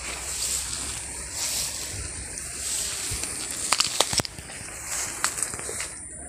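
Rustling of tall grass and leaves brushing against a handheld camera as it pushes through foliage, with a few sharp crackles of stems and twigs about four and five seconds in. A steady high buzz, pulsing about once a second, runs underneath.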